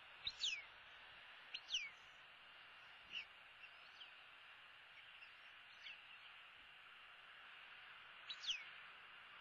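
A bird's short whistled calls, each sliding quickly down in pitch, several times, some in close pairs, over a steady faint hiss.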